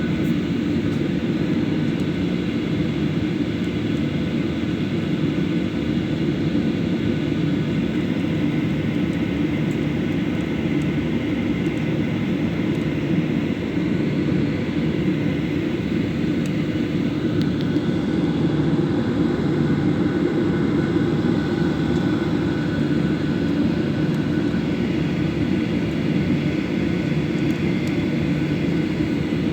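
Jet engines of a Boeing 737 heard from inside the cabin during takeoff: a steady low rumble with a thin, even whine above it.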